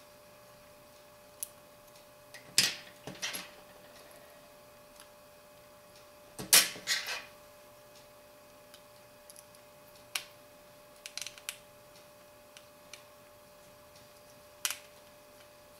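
Small, scattered clicks and taps of a tiny screwdriver and plastic and metal phone parts being handled while screws are put back into a BlackBerry Bold 9700. The loudest clusters of taps come about two and a half and six and a half seconds in.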